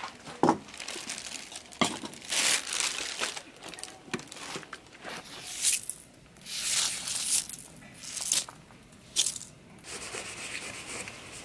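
Tent and camping gear being handled: irregular crinkling and rustling, with a few sharp knocks.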